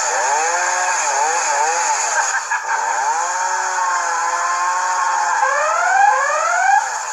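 Chainsaw engine revving, its pitch sliding up and down, then rising in three quick sweeps near the end.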